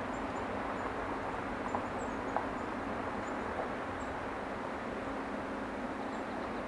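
Quiet forest ambience: a steady hiss with a few faint, high bird chirps scattered through it and two soft taps about two seconds in.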